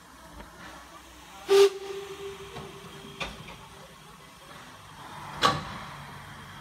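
Harz narrow-gauge class 99.23 steam locomotive standing with its train, steam hissing, with two sudden loud bursts, one about a second and a half in and one near the end. The first leaves a single ringing tone that fades over a couple of seconds.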